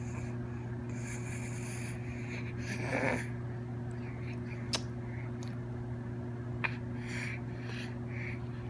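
A sleeping baby's breathing, with a short snort about three seconds in and a few sharp little clicks, over a steady low hum.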